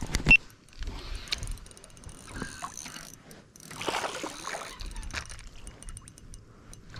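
Handling noises on a plastic fishing kayak: one sharp knock just after the start, then scattered light clicks and rustling as gear is moved about.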